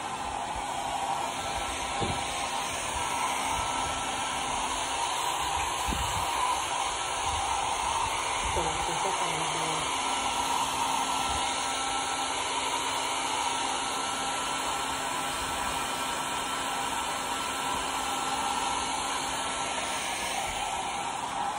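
Handheld hair dryer blowing steadily while drying a wet dog's coat. A few low thumps are heard, at about 2 and 6 seconds.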